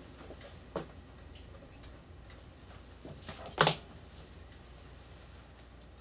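A few light clicks and taps of small parts being handled at a benchtop vacuum plasma chamber, one just under a second in and a louder one about three and a half seconds in.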